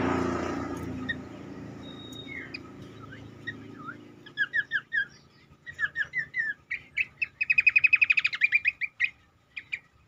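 Cingcoang singing: short runs of quick downslurred whistled notes, building into a loud, fast trill of about ten notes a second lasting nearly two seconds, then two short notes. A low rumble fades out over the first few seconds.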